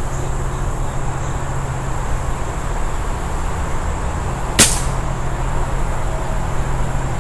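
A single shot from a Beeman R7 spring-piston air rifle about four and a half seconds in, one sudden brief report over steady low background noise.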